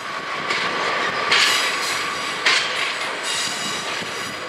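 Train running past on the track, wheels on the rails with a faint high squeal, and sudden louder clacks about a second and a half in and again about two and a half seconds in.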